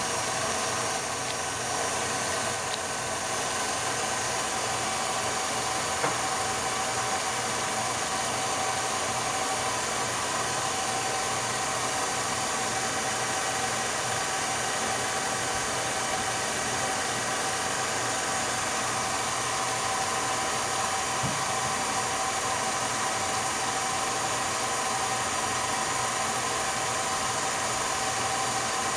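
Steady, unchanging hum and hiss of an 8mm film projector running, with a few faint steady tones and a single faint click about six seconds in.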